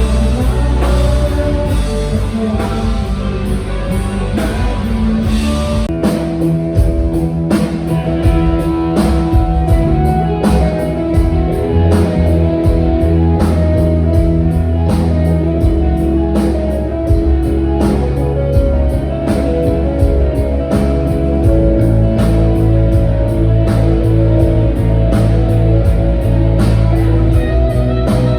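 Pop-rock band playing live through a PA during a sound check: guitar and drum kit. The drums come in with a steady beat about six seconds in.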